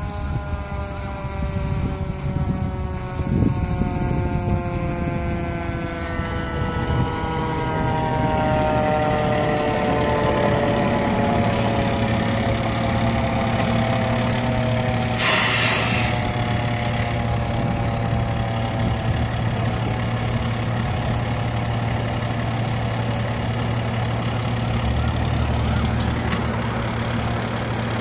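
A fire engine's diesel engine draws near and slows, its note falling steadily. About fifteen seconds in, the air brakes give a short loud hiss, and the engine then idles with a steady low hum.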